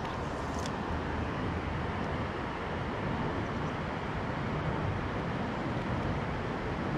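Steady rush of flowing river water, even and unbroken, with one faint click about half a second in.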